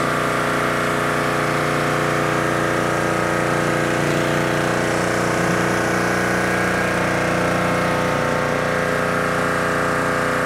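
Gas-engine pressure washer running steadily under load, with the even hiss of water jets from a rotary surface cleaner spraying onto concrete.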